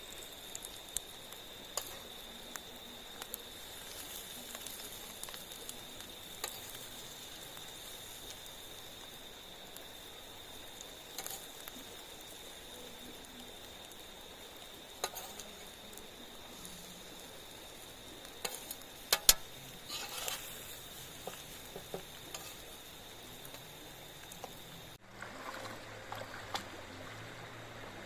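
Bacon and eggs frying in a pan: a steady sizzle with scattered sharp pops and crackles, over a steady high tone. About 25 seconds in the sizzle and tone cut off, and a lower rushing noise follows.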